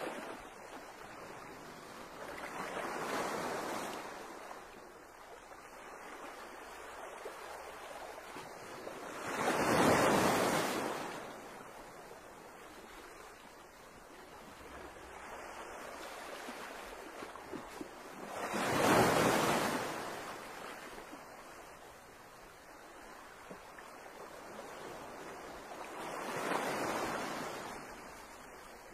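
Sea water washing against the shore in slow swells: four surges of surf noise, each rising and falling over about two seconds, roughly eight seconds apart, over a steady hiss of water and light wind.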